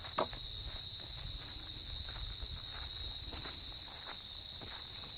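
Night insects chorusing: a steady, shrill, unbroken buzz sitting at two high pitches, with scattered faint clicks and a low rumble underneath.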